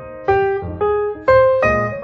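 Background piano music: notes and chords struck roughly twice a second, each ringing and fading before the next.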